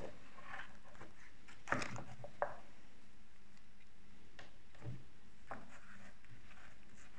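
Oracle cards being gathered and handled on a cloth reading mat: light card-on-card taps and slides, with the sharpest clicks about two seconds in and a few softer ones later.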